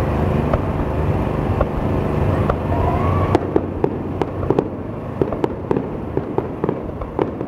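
Fireworks heard from a distance: a low background rumble, then from about three seconds in a rapid, irregular run of sharp bangs and pops, several a second, as the shells burst.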